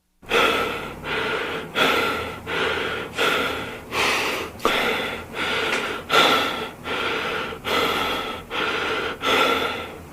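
A person breathing hard and fast in loud, rhythmic gasps, about one full in-and-out breath every second and a half.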